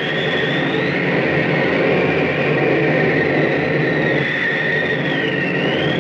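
Rushing-wind flight sound effect: a steady roar of wind with a high whistle that slowly wavers up and down in pitch.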